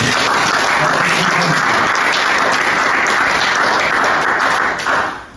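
Audience applauding steadily, the clapping fading out about five seconds in.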